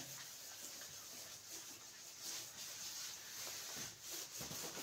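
Faint rubbing of an eraser wiping marker off a whiteboard, in short sweeping strokes that come closer together near the end.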